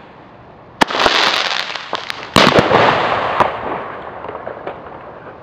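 Fireworks going off: a sharp bang about a second in with a hissing crackle after it, then a louder bang about two and a half seconds in followed by crackling that fades out.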